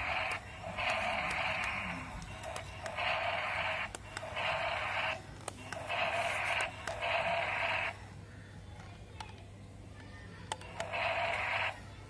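Battery-powered remote-control dinosaur toy playing harsh, unpitched roar sound effects through its small built-in speaker: about six bursts, each around a second long, with short gaps and a longer pause of a few seconds near the end.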